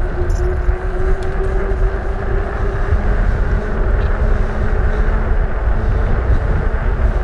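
Wind rushing over the microphone of a fat bike rolling fast down asphalt, over the rolling noise of its 4-inch Schwalbe Jumbo Jim tyres. A faint hum rises slowly in pitch as the bike picks up speed.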